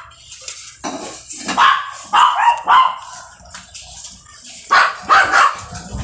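A dog barking repeatedly: about six sharp barks, four in quick succession and then two more near the end.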